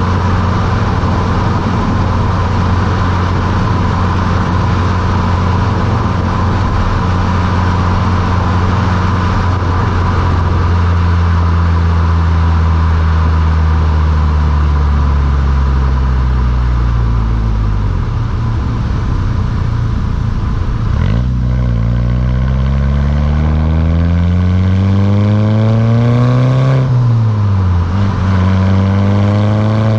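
Volkswagen Mk6 GTI's turbocharged 2.0-litre four-cylinder sounding through a Beluga aftermarket exhaust while driving. The engine note holds steady, falls over several seconds in the middle as the car slows, then climbs under acceleration, drops sharply at a gear change near the end and climbs again.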